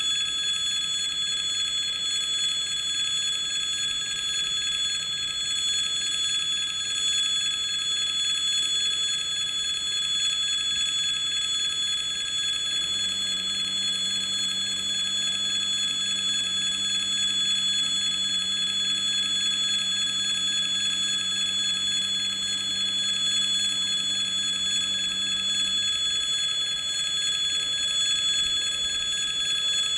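Railway level crossing's electric warning bell ringing continuously at a steady level. A low hum comes in about halfway through and stops a few seconds before the end.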